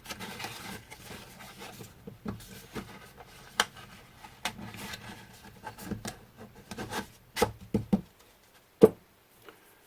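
Hand-handling sounds of a rolled thin shim and a trim router body being worked into a CNC spindle mount: rubbing and scraping with scattered clicks and knocks, the sharpest knock near the end.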